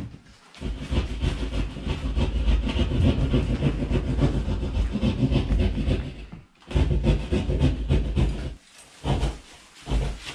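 Packaging being handled: cardboard box and plastic bags rustling and scraping as paperwork is pulled from the bottom of the box and plastic wrap is drawn off the speaker. One long stretch of rustling, then a shorter burst and a few brief ones near the end.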